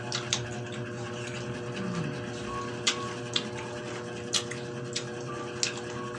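Pineapple chunks being chewed: scattered sharp, wet mouth clicks and smacks, about seven of them, over a steady low electrical hum.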